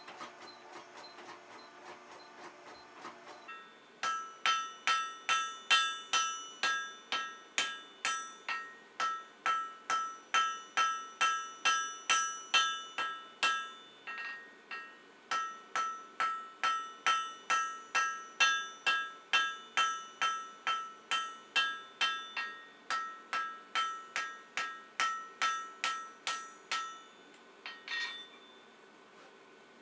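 Hand hammer striking a glowing 4140 tool-steel taper on an anvil, about two blows a second, each with a bright metallic ring; the blacksmith is smoothing the taper. There is a short pause about halfway. Before the hammering begins, a hydraulic forging press hums steadily for the first few seconds.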